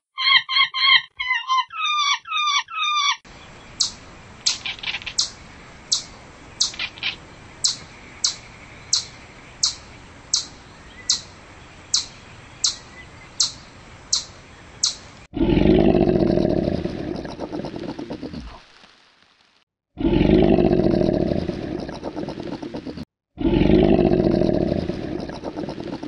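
A run of animal calls: rapid wavy high-pitched calls at first, then sharp high chirps repeating evenly about every 0.7 s, and then, from about 15 seconds in, three long, loud, rough roar-like calls.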